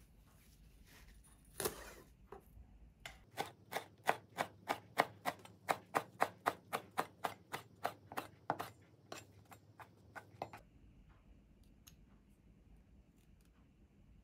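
Knife chopping rolled perilla leaves into thin strips on a plastic cutting board: even strokes about three a second, each with a sharp tap of the blade on the board, thinning out and stopping about ten seconds in. A single knock comes just before the chopping starts.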